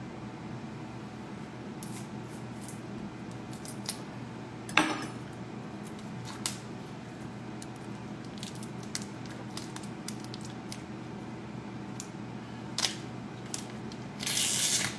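Plastic wrapping on a block of Parmesan being cut open with a knife and peeled off by hand: scattered small crinkles and clicks, a sharp snap about five seconds in, and a louder burst of crinkling near the end.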